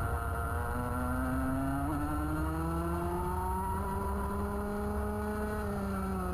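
Rotax Max 125cc single-cylinder two-stroke kart engine heard onboard, accelerating out of a corner: its pitch climbs steadily for about five seconds, then eases back slightly near the end as the kart approaches the next bend.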